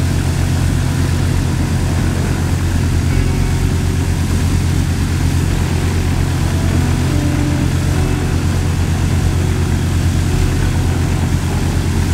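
The two piston engines of a Partenavia P.68 light twin idling with propellers turning: a steady, low pulsing drone.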